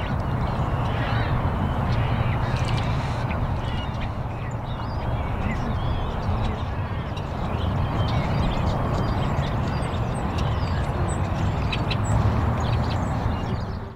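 Outdoor ambience laid over the animation: a steady rushing noise, like wind, under many short, high bird calls scattered throughout.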